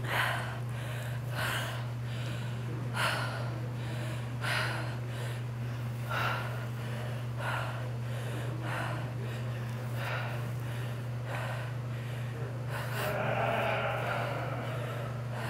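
A woman breathing hard with exertion, close to a body-worn microphone: short forceful exhales about every second and a half, with one longer, fuller breath near the end. A steady low hum sits underneath.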